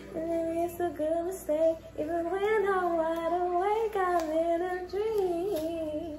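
A woman singing unaccompanied, holding long notes that slide and waver in pitch.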